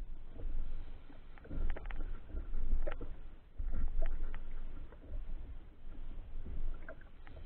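Small rigid inflatable boat rocking on a choppy sea: an uneven low rumble of water against the hull that swells and fades every second or so, with a few light clicks and knocks scattered through it.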